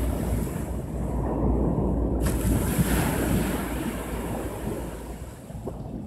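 Small sea waves breaking and washing up a sandy beach. The surf swells to its loudest about two to three seconds in, then eases off, with a low wind rumble on the microphone.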